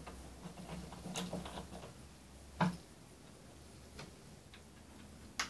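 Light clicks and taps of hands working small wires and a plastic terminal block on a wooden baseboard: a quick flurry of small clicks, a sharper knock a little past halfway, and a sharp click at the end.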